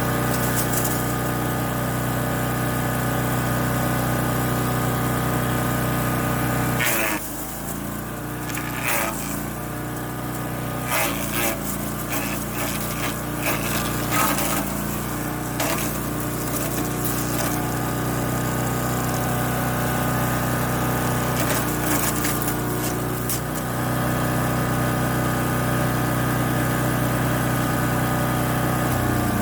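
Champion 224cc wood chipper's single-cylinder engine running steadily. About seven seconds in it labours under load as dry branches are fed through, with repeated cracking and snapping of wood being chipped for some fifteen seconds, then it settles back to its steady note.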